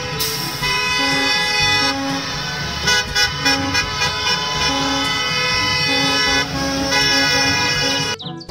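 Several school bus horns honking together in long, overlapping blasts, stopping abruptly near the end.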